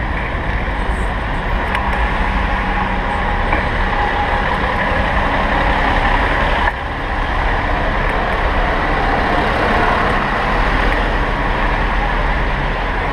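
Dense city traffic heard from a bicycle's handlebar-mounted action camera: buses, cars and taxis running and idling close by, over a steady low rumble. The level drops suddenly about seven seconds in, then picks up again.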